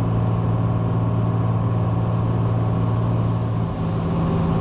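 Cessna 182's piston engine and propeller droning steadily in flight, with a slight change in the low hum about three-quarters of the way through.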